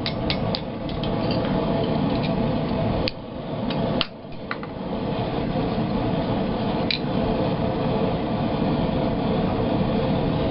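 Forge running with a steady rushing noise, dipping briefly twice about three and four seconds in, with a few light clinks of metal.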